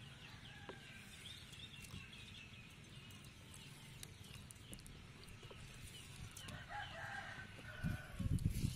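Faint bird calls, with short chirps throughout and a brief burst of clucking-like calls about seven seconds in. Low thumps near the end.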